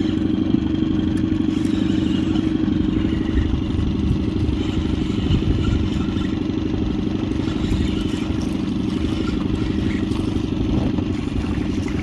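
Boat's outboard motor running steadily while the boat is under way.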